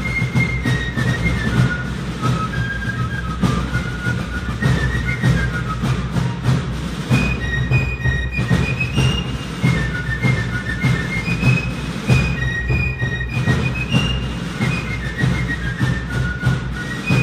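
Background music: a high melody stepping from note to note over a steady low rhythm.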